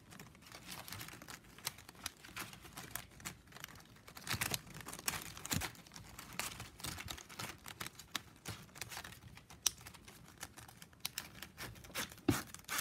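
9 mm plastic strapping band being threaded through a woven piece and pulled tight by hand: irregular light crackling, scraping and clicking of stiff plastic strips, with a few sharper clicks.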